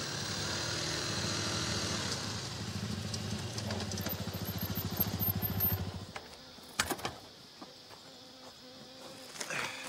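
Trail motorcycle engine running as the bike rides in, settling to a slow, pulsing idle and cutting off about six seconds in. A couple of sharp clicks follow.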